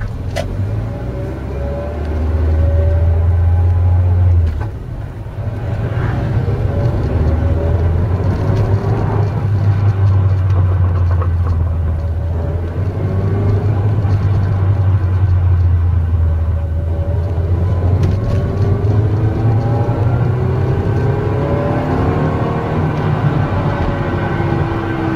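Mazda NC Roadster (MX-5) under way, its engine a steady low drone with a brief dip about four and a half seconds in. Over the drone, pitched whines rise again and again as the car gathers speed. The owner takes this noise for gear damage in the six-speed manual transmission, heard mainly under throttle.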